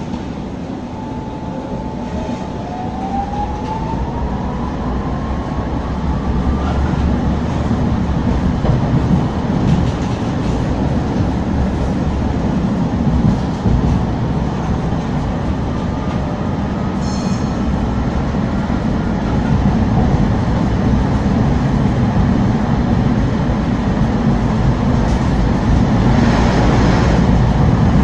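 Inside a ČKD Tatra T3 tram on the move: steady low running noise of the wheels on the rails, with a thin whine from the traction drive that rises in pitch as the tram gathers speed. The whine rises twice, the first time in the opening seconds and again past the middle, while the running noise gets steadily louder.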